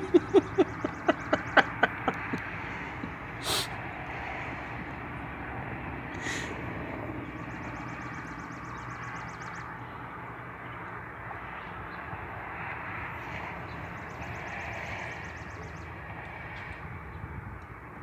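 Outdoor ambience: a steady background rumble, with a run of about a dozen loud pulses that slow and fade over the first two seconds or so. A high, fast trill comes three times, about six seconds apart.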